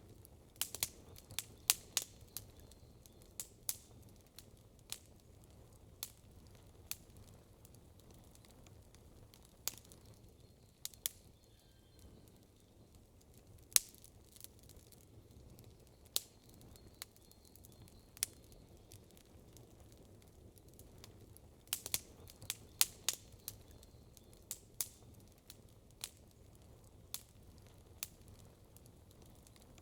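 Wood campfire crackling: sharp, irregular pops and snaps over a faint low background hum, with quicker flurries of pops near the start and again about two-thirds of the way through.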